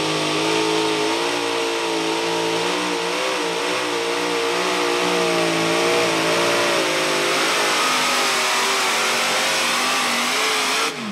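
Modified pulling tractor with several supercharged automotive engines running hard under load as it drags the sled. The note holds high and steady with a slight wobble in pitch, and just before the end the engines drop off sharply as the throttle is cut.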